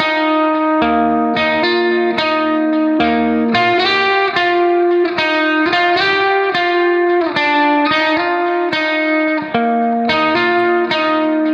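Background music: a plucked-string melody, notes struck one after another at a steady pace.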